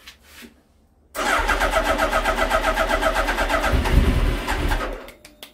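Suzuki Hayabusa's inline-four engine being cranked on its electric starter for about four seconds, in an even, rapid rhythm, on its first start attempt after two years standing. There is a louder, deeper surge near the end as it tries to fire, but it does not settle into running.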